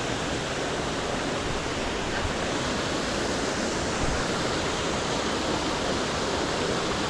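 Waterfall: a steady rush of falling water pouring into a plunge pool, even and unbroken.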